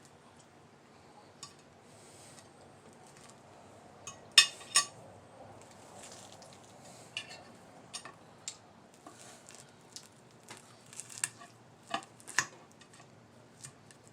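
Cutlery clinking and scraping against plates now and then while eating, the loudest a pair of ringing clinks about four seconds in, with a few more scattered clicks near the end.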